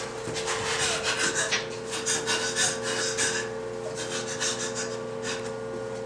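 Irregular rasping, scraping noises in quick short strokes over a steady hum, thinning out after about three and a half seconds.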